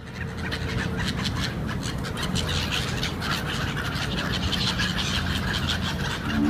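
Outdoor city ambience: a steady low rumble with many short, irregular bird chirps over it.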